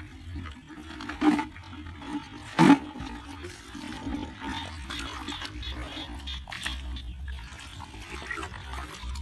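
A plastic bucket holding crabs being handled, with two sharp knocks in the first three seconds, over a steady low rumble of wind on the microphone. Water sloshes near the end as the bucket is dipped into shallow muddy water.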